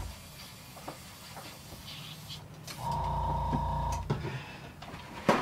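Airbrush compressor motor running for about a second and a half, a steady hum that starts and stops, with a few light clicks from bottles and tools being handled.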